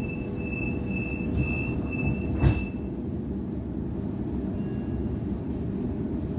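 Waratah A-set train's door-closing warning: a high-pitched beep pulsing on and off for about three seconds, with a thud about two and a half seconds in as the doors shut, over the steady hum of the stationary train.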